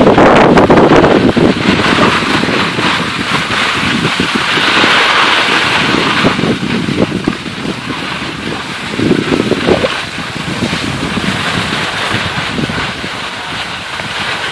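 Wind buffeting the microphone, mixed with the hiss of skis sliding over snow. The rumble is heaviest at the start and the hiss grows brighter about four to six seconds in.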